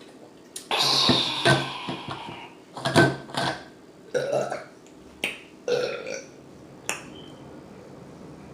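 A woman burping repeatedly: a string of separate burps, a longer one near the start followed by several short ones.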